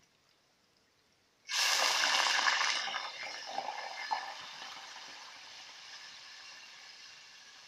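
Hot frying oil in a pot bursts into loud sizzling and crackling about a second and a half in, then slowly dies down to a steady, quieter sizzle.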